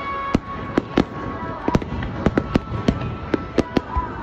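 Aerial fireworks shells bursting in quick succession: a dozen or so sharp bangs, about three a second.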